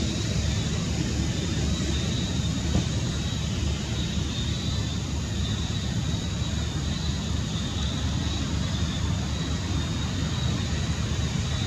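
Steady low rumble of outdoor background noise, with a thin, steady high whine running over it.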